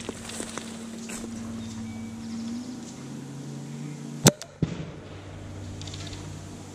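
A 40mm airsoft grenade launcher firing a gas-powered grenade: one sharp, loud pop a little over four seconds in, then two small knocks. A louder burst that fades slowly comes right at the end.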